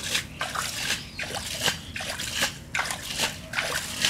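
A hand splashing and sloshing in shallow muddy pond water, a run of irregular short splashes a few times a second, as it gropes through the mud for small fish.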